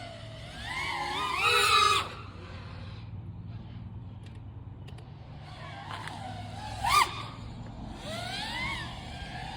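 FPV quadcopter's brushless motors whining, their pitch sweeping up and down with the throttle. A loud rising throttle punch cuts off abruptly about two seconds in, a short sharp burst comes about seven seconds in, and another climbing, falling glide follows near the end.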